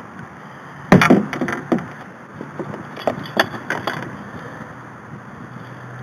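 Sharp knocks and clattering against a plastic kayak hull while a bass and fishing gear are handled: a loud cluster about a second in, then a few more scattered knocks until near the middle.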